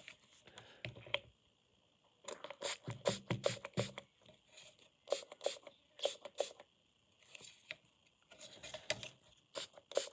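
Small plastic parts of an opened Logitech M185 wireless mouse being handled: groups of light clicks and scrapes with short pauses between them.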